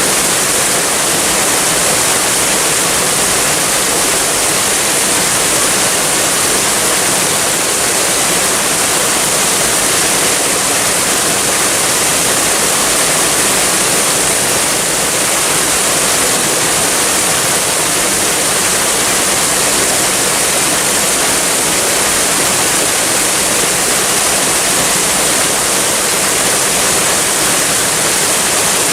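Waterfall rushing in a steady, unbroken roar of falling water, with a bright hiss.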